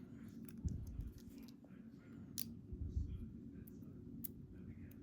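Scattered small clicks of metal tweezers and lock parts, with a few soft handling knocks, as pins are worked out of an EVVA ICS lock's chambers.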